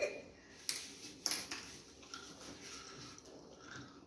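Two light clicks about half a second apart, then faint room sound: tableware being handled during a meal.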